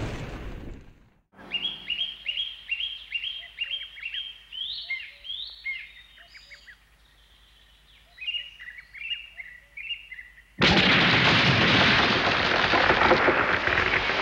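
Birdsong sound effect: a bird calls over and over in short falling chirps, about two a second, with a pause a little past halfway. About ten and a half seconds in, a loud, even rushing noise cuts in suddenly and carries on. Before that, the fading tail of music is heard at the very start.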